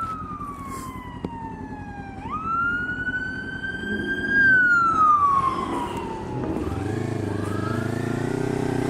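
Emergency vehicle siren wailing: one tone slides down, jumps back up, climbs slowly and then falls away again. From about two-thirds of the way in, a motorcycle engine runs steadily underneath.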